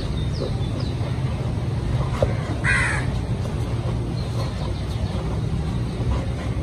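A single harsh bird call about three seconds in, over a steady low background rumble, with a few faint high chirps near the start.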